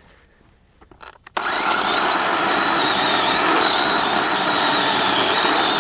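A battery-powered chainsaw revved up suddenly about a second and a half in and held at full speed with its chain spinning freely, not cutting, in a steady high whine. A few small clicks come before it starts.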